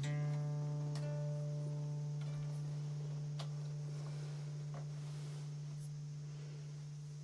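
Harp music: plucked notes ring out at the start and again about a second in over a steady low held tone, then everything slowly fades away.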